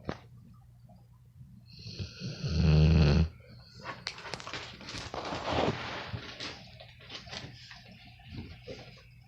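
A pit bull snoring in its sleep: one long, loud snore about two seconds in, followed by softer, irregular rattling breaths.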